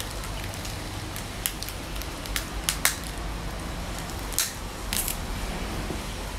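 Crisp crackles and snaps of fried bánh xèo crêpe and fresh mustard-green leaves being folded and wrapped by hand: a handful of separate sharp crackles over a steady low hum.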